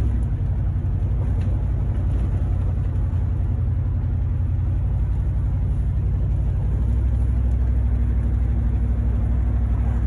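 A car's V8 engine running steadily under way, a low rumble with a rapid even pulse, growing somewhat stronger about seven seconds in.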